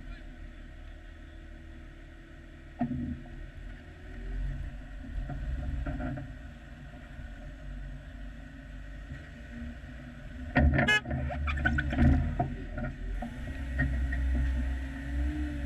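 Off-road Jeep crawling slowly over a snowy, rocky trail, its engine running at low revs. A single knock comes about three seconds in, and loud clunks and rattles follow around ten to twelve seconds in as it works over the rocks. The engine note wavers up and down near the end.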